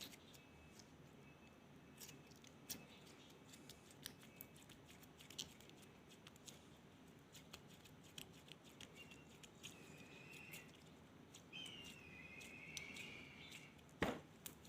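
Elmer's glue slime being squished and pulled by hand: scattered soft clicks and small pops, two short squeaky squelches in the second half, and one sharper pop a little before the end.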